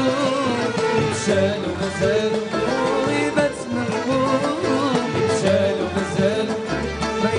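Live Middle Eastern orchestra music: a violin section plays a wavering melody over the band and percussion, with a male voice singing.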